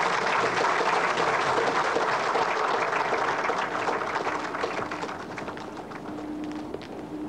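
A roomful of people applauding, dense clapping that thins out and dies away over the last few seconds.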